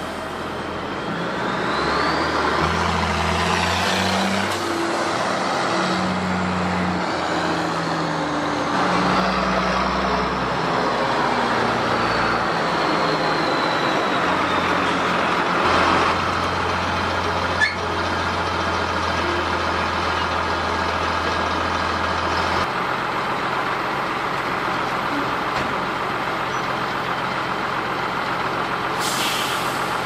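Fendt 824 Favorit tractor's diesel engine running as it pulls a three-axle trailer, its pitch stepping up and down, with a high whine that rises and then slowly falls early on. A sharp click comes about halfway through and a short hiss near the end.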